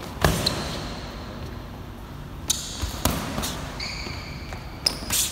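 Boxing gloves smacking on punches, several sharp hits with the loudest about a quarter second in, and sneakers squeaking on the sports-hall floor between them.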